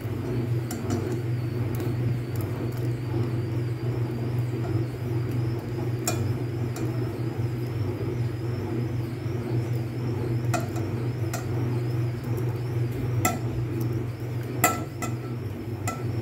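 Steady low rumble of a gas stove burner under a steel pot of hot milk, with a few light clinks scattered through as rice-flour dough balls are dropped in by hand and the plate touches the pot.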